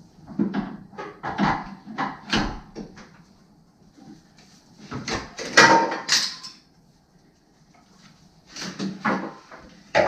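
Steering rack being wiggled side to side and worked out of a 2010 Camaro SS's front end: bursts of metal clunks, knocks and scraping in three spells, with short pauses between.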